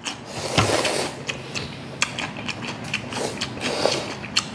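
Cold naengmyeon noodles being slurped in one long hiss for about the first second, followed by rapid, irregular wet clicks of chewing.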